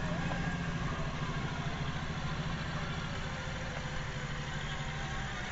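A steady, low engine-like idling hum with a fast pulsing beat. Its tone fades out near the end.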